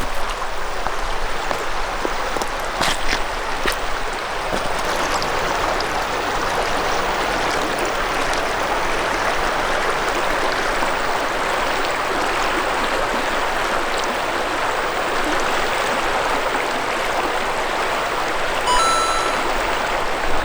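River water rushing steadily over rocks, a continuous even wash, with a brief ding near the end.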